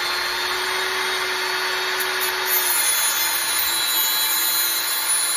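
Handheld electric tungsten grinder running at full speed, a steady motor whine with grinding hiss, as a 3/32 tungsten electrode is ground to a 30-degree point. The whine sags slightly in pitch about three seconds in.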